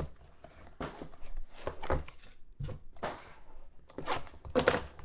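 Hands handling small cardboard trading-card boxes on a tabletop: an irregular run of knocks, scrapes and rustles, loudest near the end as a blade slits a box's seal.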